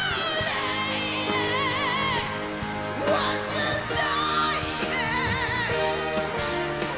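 A singer's wordless vocal with wide vibrato on held, ornamented notes over a pop-ballad backing of sustained chords, at the close of an English love ballad.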